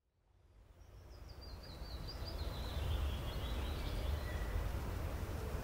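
Outdoor ambience fading in from silence: a steady low rumble, with a songbird singing a run of quick high chirps that step gradually lower in pitch over a couple of seconds.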